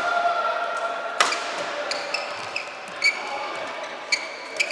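Badminton rally on an indoor court: sharp smacks of rackets striking the shuttlecock, the loudest just over a second in, with a few more through the rest, and short high squeaks of court shoes on the floor.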